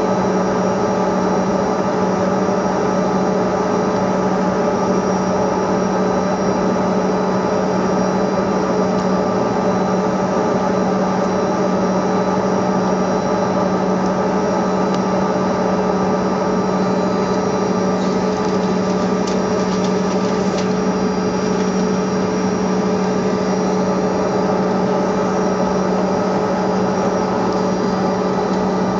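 Bombardier CRJ200 regional jet's rear-mounted turbofan engines idling steadily, heard inside the cabin as a constant hum with several steady whining tones over a rush of air.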